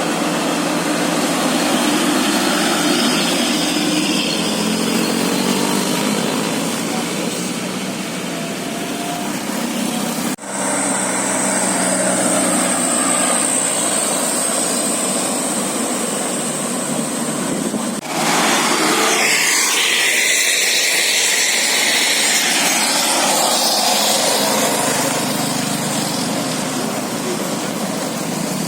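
Bus engine and road traffic noise, a steady rush that breaks off sharply twice, with a steady high whine between the two breaks.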